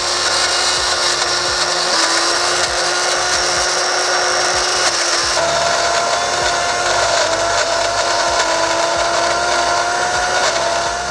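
Tefal Fruit Sensation blender's motor running steadily as its small chopper jar grinds onion and garlic with a little oil into a paste. Its whine shifts pitch about five seconds in.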